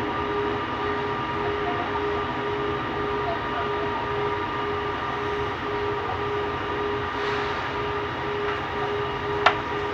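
Interior running noise of a Bombardier Innovia Metro 300 train in motion: a steady rumble with a constant hum, and a single sharp click near the end.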